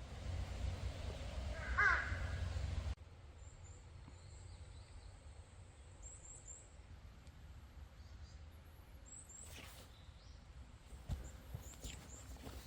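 A crow cawing once about two seconds in, over a steady low rumble that cuts off suddenly near three seconds. After that, quiet outdoor background with faint high small-bird chirps and a few light knocks.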